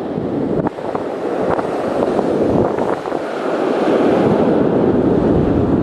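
Strong wind buffeting the microphone over ocean surf breaking on the beach, a steady loud rush of noise.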